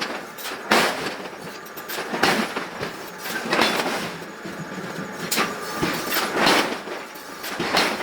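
Heavy metal-on-metal clanks in a forging shop, about six of them, a second or so apart and each ringing briefly, over a constant machinery noise.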